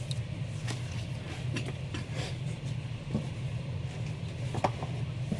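Steady low room hum from running machinery, with a few faint clicks and rustles of handling.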